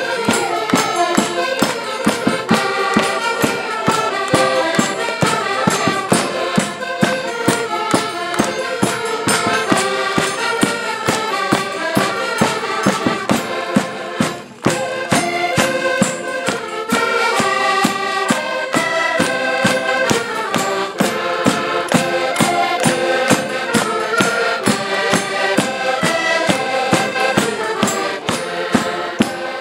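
Several accordions playing a lively Portuguese folk tune together over a steady beat. The music drops out for a moment about halfway through, then carries on.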